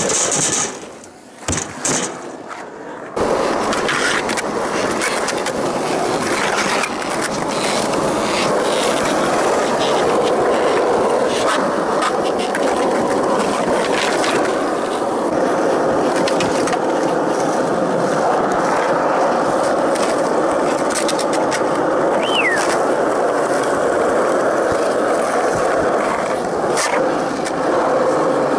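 Skateboard wheels rolling on asphalt and concrete in a steady rumble, with scattered clacks of the board; the first few seconds are choppier with sharp knocks, and a short rising squeal comes about 22 seconds in.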